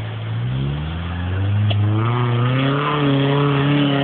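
Suzuki Jimny engine revving up under load as the 4x4 climbs out of muddy water onto a steep dirt bank. The pitch rises steadily and holds high near the end.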